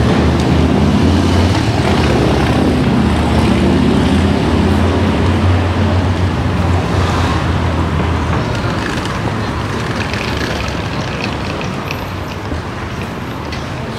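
City street traffic, with a motor vehicle's engine rumbling close by for about eight seconds and then fading away.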